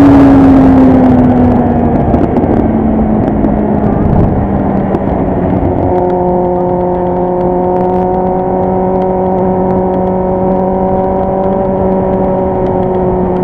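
Kawasaki Z800 motorcycle's inline-four engine and exhaust, loud, its pitch falling over the first two seconds as the revs drop, then holding steady revs with an even drone for the rest.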